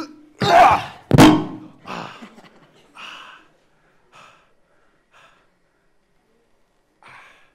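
Heavy thuds of a body dropping onto a stage floor: two loud thumps within the first second and a half, then a few much fainter scattered sounds.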